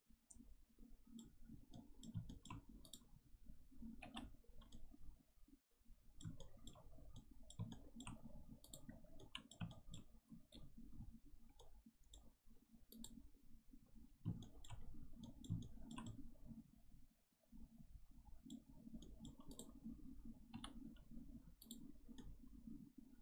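Faint, irregular computer mouse clicks over low room noise.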